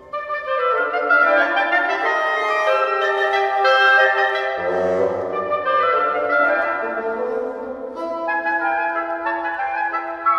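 A woodwind trio of oboe, clarinet and bassoon playing classical chamber music. It comes back in right at the start after a brief pause, and a low line joins about halfway through.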